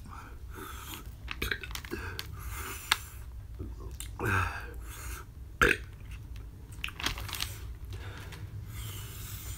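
A plastic instant-noodle packet crinkling and being handled, with a few sharp taps and clicks. A short burp-like throaty sound from the eater comes about four seconds in.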